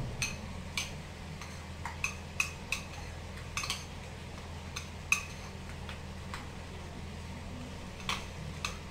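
Metal spoon clinking against a ceramic bowl while stirring a thick soy-sauce dipping sauce: about a dozen light, irregular clinks, a pause of a few seconds, then a few more near the end.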